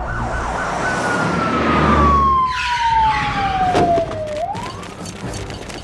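Police car siren sound effect: a single wail falling slowly in pitch for about three seconds, then beginning to rise again. Under it, the rush and low rumble of a car speeding by, with a sharp knock about four seconds in.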